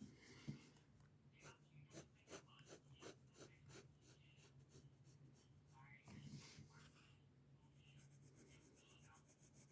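Graphite pencil scratching on paper: short, evenly spaced strokes about three a second, then, near the end, faster and finer shading strokes. A faint steady low hum runs underneath.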